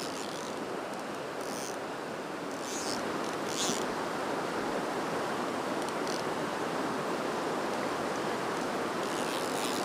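Fast mountain river rushing through whitewater rapids over boulders, a steady rush that grows slightly louder about three seconds in.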